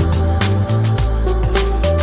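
Background music with a steady electronic beat, drum hits and a moving bass line.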